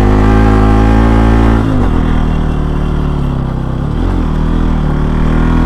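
Bajaj Pulsar NS200's single-cylinder engine running under way at steady revs. Its note drops sharply about two seconds in, dips again near the middle, then rises back.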